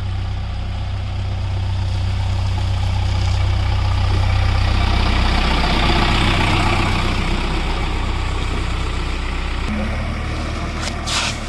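Heavy diesel engine running steadily, getting somewhat louder and busier around the middle. A couple of short knocks come near the end.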